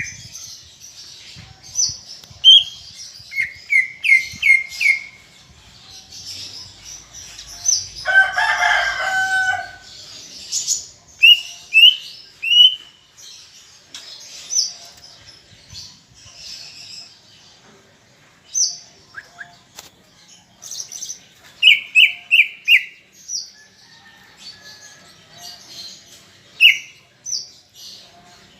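Green leafbird (cucak ijo) singing: runs of four or five quick, falling whistled notes, mixed with high chattering chirps. About eight seconds in, one longer and lower call lasts about a second and a half.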